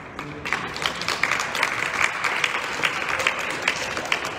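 Spectators applauding, the clapping swelling about half a second in and thinning out near the end.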